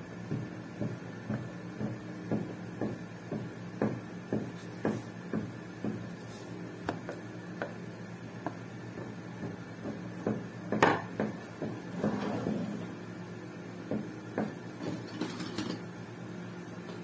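Hands pressing and rolling out a piece of cold porcelain clay on a hard tabletop with a white roller: a run of light knocks and taps about two a second, with one louder click about eleven seconds in. A steady low hum runs underneath.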